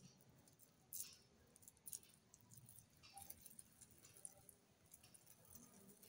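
Near silence, with a few faint, brief sounds of oiled hands rolling a lump of cabbage cutlet mixture between the palms.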